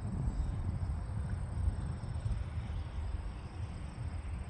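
Wind buffeting the microphone, a steady low rumble, with a faint steady high-pitched tone above it.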